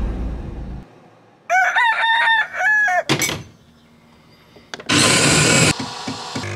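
A rooster crowing once, cock-a-doodle-doo, about a second and a half in. Later a Jura E60 coffee machine starts with a short loud hiss and then runs with a steady buzzing hum.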